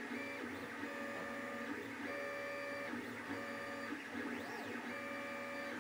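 FDM 3D printer printing a part: its stepper motors whine in pitched tones that start, stop and change every half second to a second as the print head moves, over the steady whir of the cooling fans.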